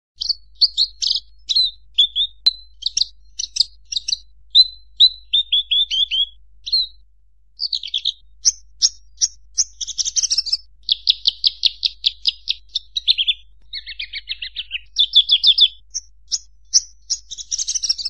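Horsfield's bushlark (branjangan) singing: a fast, varied run of short chirps, down-slurred whistles and rapid trills, broken by brief pauses.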